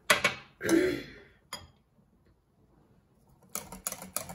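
Utensils clinking against glass, then, near the end, a wire whisk starts beating a butter-and-oil mixture in a glass bowl, clicking against the glass about four times a second.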